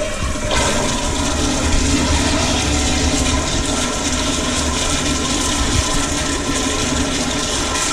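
A toilet flushing loudly: a steady rush of water that surges about half a second in and runs on for several seconds.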